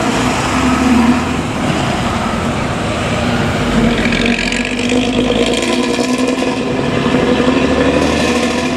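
Diesel engine of an intercity bus running with a growling aftermarket 'ngorok' exhaust. The engine note stays steady, with road noise beneath it.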